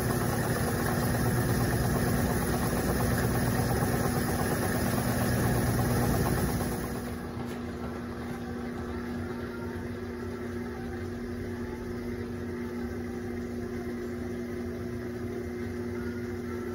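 Electrolux Turbo Compacta 7 kg (LTC07) washing machine running its turbo spin at about 520 RPM: a steady motor hum and vibration that drops noticeably in loudness about seven seconds in, then carries on steadily.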